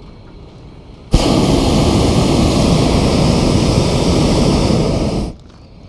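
Hot air balloon's propane burner firing one blast of about four seconds, switched on sharply about a second in and cut off sharply near the end, a loud, even rush of flame heating the air in the envelope.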